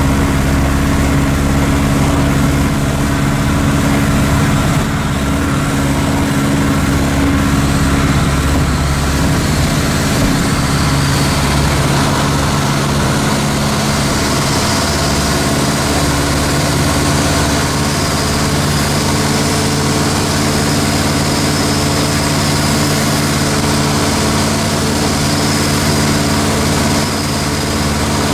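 Ultralight aircraft's engine and propeller running steadily, heard from inside the cockpit, with a few small shifts in pitch and level.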